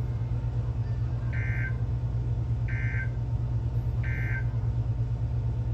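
Three short electronic beeps, evenly spaced about 1.3 seconds apart, over a steady low hum from a weather radio broadcast.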